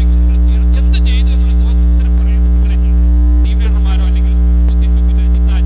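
Loud, steady electrical mains hum and buzz in the microphone and PA sound system, drowning out a faint voice beneath it.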